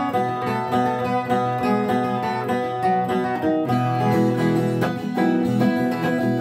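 Viola caipira, the Brazilian ten-string folk guitar, playing an instrumental passage of quickly changing plucked notes.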